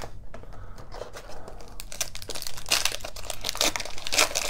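Foil wrapper of an Upper Deck hockey card retail pack being pulled from the box and torn open by hand: crinkling and crackling that gets louder and busier in the last couple of seconds as the wrapper tears.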